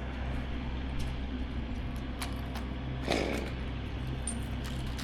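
An engine running steadily at low revs, with scattered light clicks and a short rustling burst about three seconds in.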